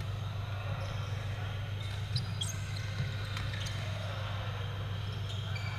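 Badminton rally: sharp racket strikes on the shuttlecock, the loudest about two and three seconds in, with short squeaks of court shoes and footfalls, over a steady low hum of the hall.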